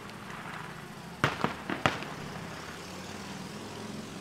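Aerial fireworks shells bursting at a distance, a quick cluster of about four bangs a little over a second in, over a steady low background hum.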